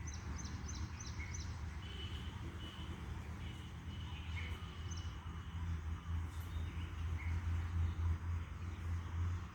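Small birds chirping: a quick run of about five high chirps in the first second and a half, a thin high note held for a few seconds, then scattered short calls, over a steady low rumble of background noise.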